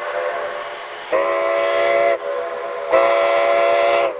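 Narrow-gauge steam locomotive's whistle blowing two long blasts, each about a second, with a short gap between them in which a fainter tone lingers.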